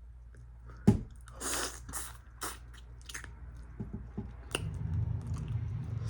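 Close-up chewing and lip smacking on food, a string of short wet mouth sounds, with one sharp click about a second in. A low steady hum comes in about two-thirds of the way through.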